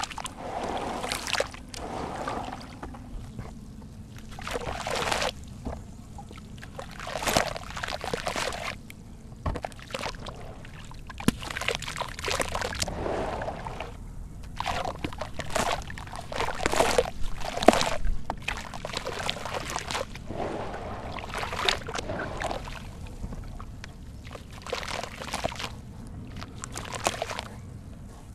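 Muddy water sloshing and trickling in a plastic tub as soaked sand-cement clumps are squeezed and crumbled by hand, in irregular splashy bursts.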